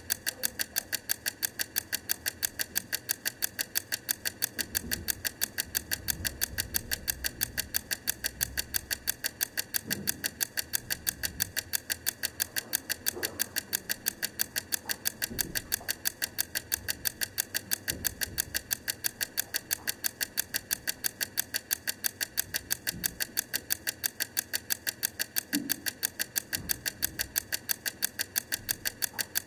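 Wrangler Blue Bell wind-up egg timer's clockwork ticking in an even, steady rhythm as it counts down.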